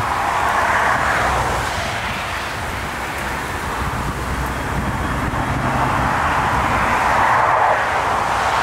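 Airbus A380's four jet engines on final approach: a steady jet rush that grows louder towards the end as the airliner nears, over a low rumble of wind on the microphone.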